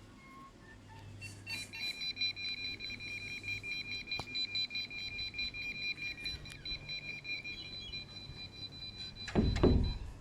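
Electronic buzzer alarm of an Arduino door-lock system sounding a rapid, high-pitched beeping for several seconds, then stopping. A loud thump follows near the end.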